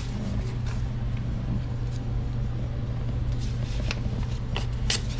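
Steady low mechanical hum, with a few light clicks and rustles from paper drywall tape being handled against the wall.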